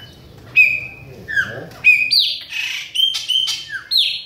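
Chopi blackbird (pássaro-preto) singing: a run of loud, clear whistled notes, several sliding down in pitch, with a harsh raspy note in the middle.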